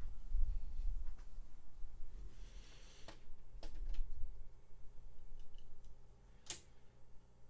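Die-cast toy cars clicking against a plastic Hot Wheels track as they are set into the starting gate: a few separate sharp clicks, the loudest about six and a half seconds in, over a low rumble of handling noise in the first few seconds.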